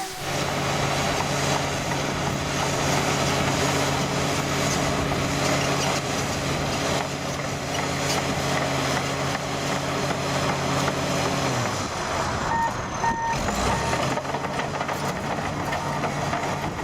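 Komatsu D65PX crawler bulldozer's diesel engine running steadily, its pitch dropping about twelve seconds in as it eases off. The reversing alarm then beeps at a steady pace, showing the dozer backing up.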